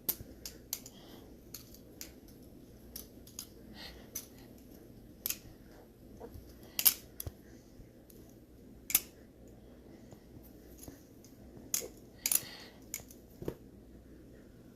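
Ryworx Konohishi Kogarasu sandwich-construction balisong on bushing pivots being flipped and handled: irregular sharp metal clicks and clacks as the handles and blade swing and latch. A few clacks are much louder.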